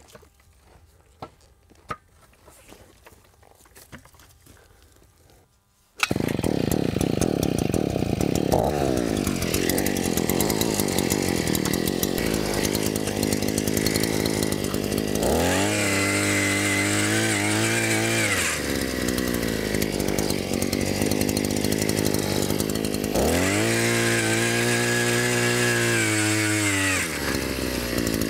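A handheld gas post-hole auger's small two-stroke engine starts abruptly about six seconds in, after a few faint handling clicks, and runs. It is revved up twice for several seconds each time as the auger bores into the ground.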